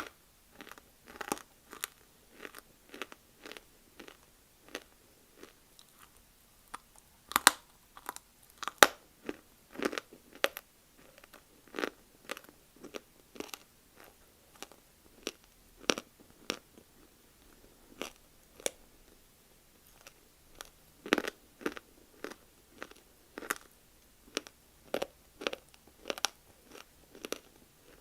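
A person biting and chewing dry chunks of Multani mitti (fuller's earth clay): irregular sharp crunches, one to three a second, the loudest about seven and nine seconds in.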